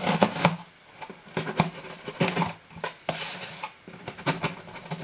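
A cardboard parcel being opened by hand: an irregular run of rustling, scraping and short sharp knocks as the box and its packing are handled.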